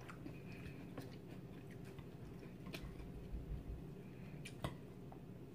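Faint chewing of a mouthful of salad, with a few light clicks of a metal fork against the plate, about three times.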